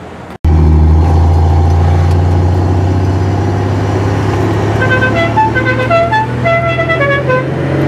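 A car engine running steadily and loudly, and from about five seconds in a musical car horn plays a quick tune of short notes over it.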